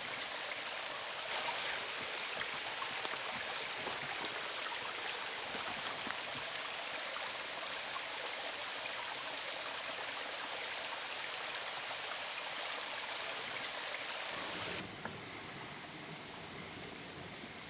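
Steady rushing of a stream, an even hiss of flowing water. About fifteen seconds in it cuts to a quieter, duller background hiss.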